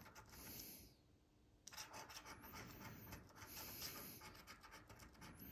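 Coin scraping the scratch-off coating from a lottery ticket in quick, faint strokes, pausing briefly about a second in before scratching resumes.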